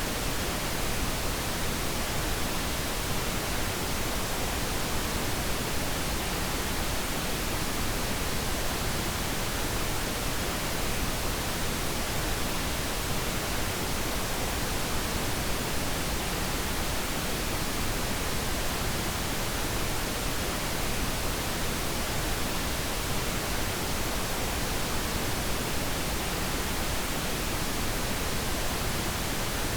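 Steady pink noise: an even, unchanging hiss with no events or changes.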